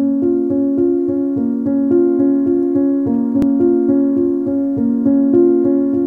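Background music on a piano-like keyboard: a steady, even pulse of repeated notes.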